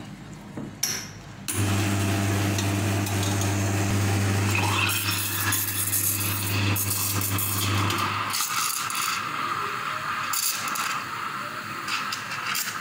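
Espresso machine steam wand steaming milk in a stainless steel pitcher: a steady hiss with a high tone running through it, over a low machine hum that comes on suddenly about a second and a half in and stops after about eight seconds.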